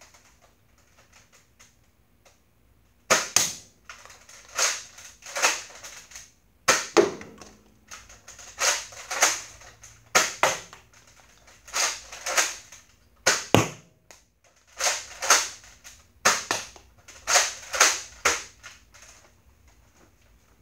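Modified Nerf Retaliator pump-action dart blaster being primed and fired again and again: a run of sharp plastic clacks, mostly in close pairs, every second or two, starting about three seconds in.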